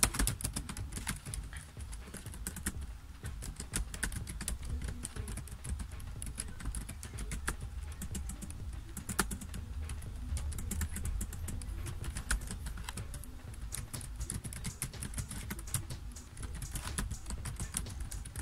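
Typing on a computer keyboard: quick, irregular keystrokes throughout, with a few sharper key taps standing out.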